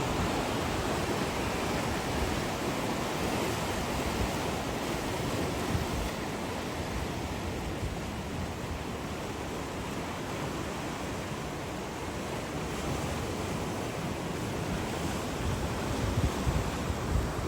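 Sea waves washing and breaking on the shore in a steady surge, easing off in the middle and building again near the end, with wind buffeting the microphone.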